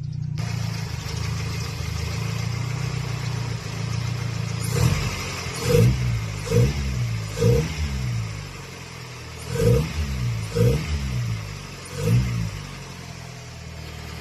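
Toyota Corolla car engine idling, then revved in six quick throttle blips, each rising and falling back to idle. The engine is said to knock when it runs hot.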